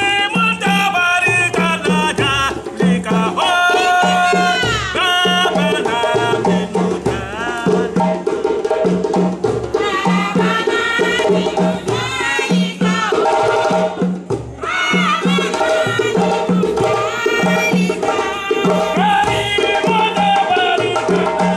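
West African drum ensemble playing a steady, repeating rhythm for dancers, with a sung or melodic line bending over the drums.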